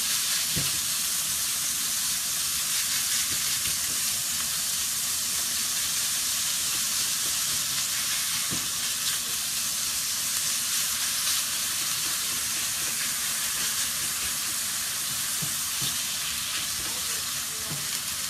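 Minced beef and chopped onion sizzling steadily in olive oil in a frying pan while being stirred with a wooden spatula, with a few light taps of the spatula against the pan.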